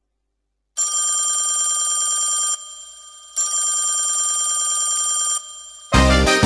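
A telephone ringing twice, each ring about two seconds long with a fast trill, and a short pause between. Music starts near the end.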